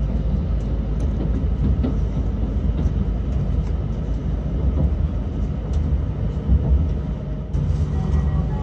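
Akita Shinkansen train running, heard from inside the passenger cabin: a steady low rumble of the wheels on the rails with a few faint knocks.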